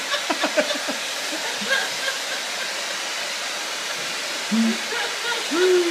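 Hand-held hair dryer blowing with a steady rush of air, while a woman laughs in quick bursts during the first second and lets out a long falling voiced sound near the end.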